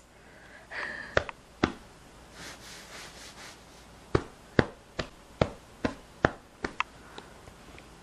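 A kitten hiccuping: two small sharp hics about a second in, then a run of about eight, two or three a second.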